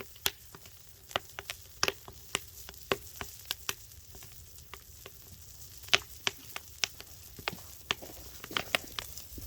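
Steak cooking on a burning whole log: irregular sharp pops and crackles, a few a second, over a faint hiss.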